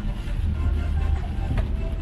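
A car driving through a heavy downpour: a steady low rumble of tyres and engine under an even hiss of rain, with one sharp tick about one and a half seconds in.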